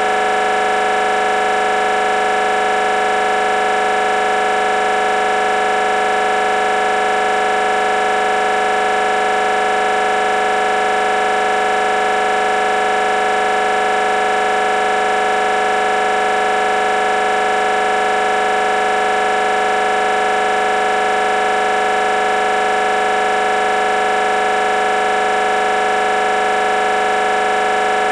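Building fire alarm sounding one continuous, unbroken tone, loud and steady in pitch: the signal to evacuate.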